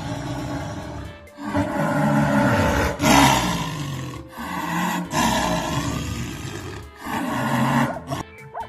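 An animal giving a run of loud, long calls, about six in a row, each a second or so long with short breaks between.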